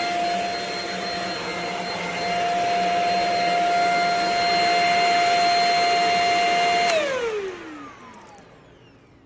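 Shark HV322 Rocket Pet Plus corded stick vacuum running with a steady high whine. About seven seconds in it is switched off, and the motor's whine falls in pitch and fades as it spins down.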